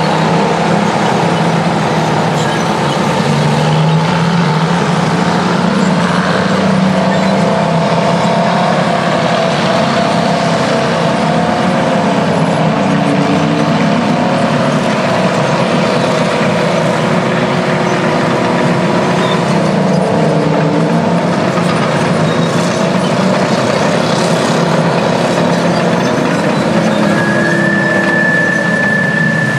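Two-stroke Detroit Diesel engines of vintage Terex bulldozers and scrapers working, with the engine pitch shifting up and down as they load and ease off. A steady high whistle comes in near the end.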